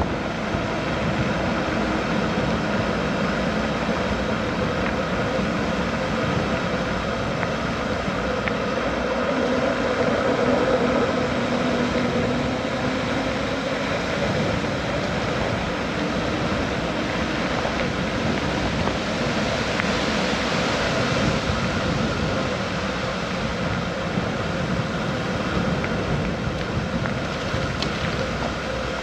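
Car driving along a road: steady engine and tyre noise, the engine note drifting slightly up and down.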